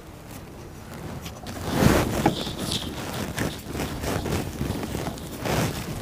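Gloved hands kneading wet henna and beetroot-juice paste in a bowl: irregular soft squelches and rustling of the plastic gloves, loudest about two seconds in.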